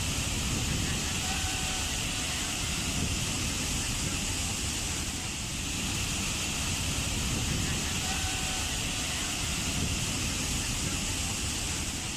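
Waterfall: a steady, unbroken rush of falling water, with a deep rumble under a bright hiss.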